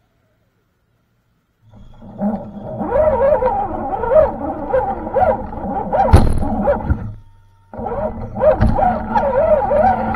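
Small RC crawler's electric motor and gears whining, the pitch rising and falling with the throttle, heard through a camera mounted on the truck, with rumbling and rattling as it climbs over rocks. It starts after about two seconds of silence. A sharp knock about six seconds in is the loudest sound, and the sound cuts out briefly just after seven seconds.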